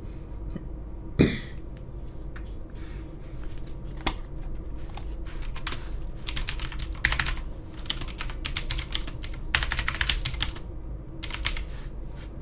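Typing on a computer keyboard in several short bursts of rapid key clicks, with one brief louder thump about a second in.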